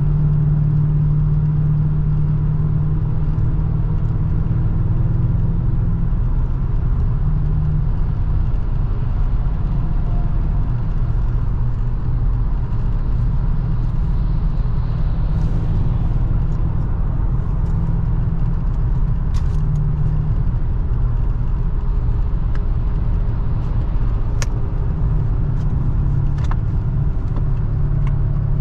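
2003 Mercedes-Benz E500 4Matic's 5.0-litre V8 driving at a steady speed, a constant low drone mixed with road and wind noise. A few brief sharp ticks come in the second half.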